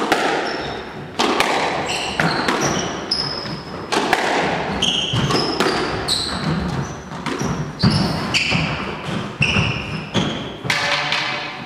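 Squash rally: the ball cracking off rackets and the court walls in quick, uneven succession, echoing in the enclosed court, with sneakers squeaking on the wooden floor between strokes.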